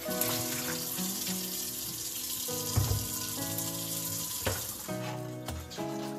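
Kitchen tap running water into a stainless steel sink as a pot is rinsed, with one dull knock a little before three seconds in; the water stops about five seconds in.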